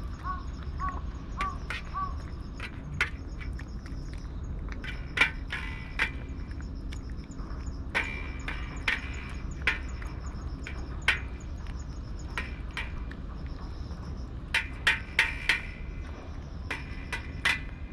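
Scattered sharp clicks and crunches, some in quick clusters, over a steady low background hum with a faint high chirping that repeats on and off.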